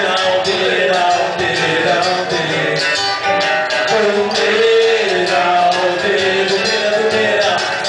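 Live acoustic band playing a song: strummed acoustic guitar, an electric guitar and a cajón keeping a steady beat.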